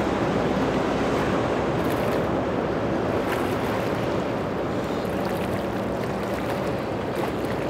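Motorboat engines running with a low steady hum amid rough surf and wind in an ocean inlet.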